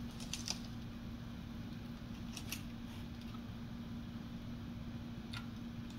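Hobby knife cutting through a thin balsa strip on a building board: a few short, sharp clicks as the blade presses through, just after the start, about two and a half seconds in and near the end, over a steady low hum.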